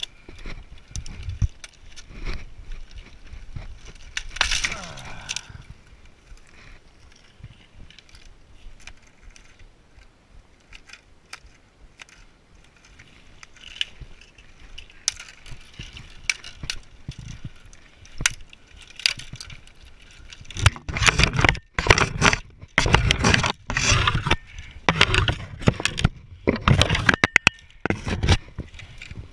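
Footsteps through dry grass and rock, with dead branches cracking, snapping and scraping close to the microphone. The snapping and rustling are loudest and densest in the last third.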